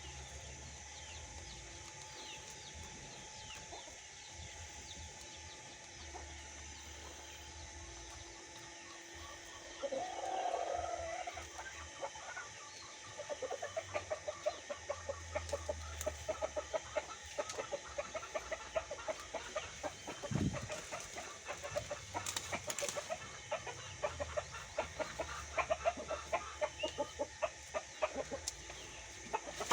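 Chickens clucking in a long run of short, quickly repeated calls, after one louder drawn-out call about a third of the way in.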